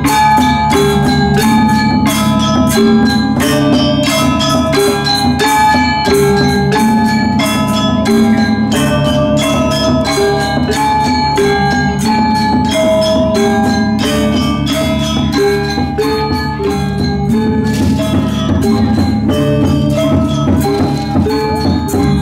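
Balinese gamelan playing: bronze metallophones struck with mallets in a quick, even stream of ringing notes over a steady low hum of sustained tones.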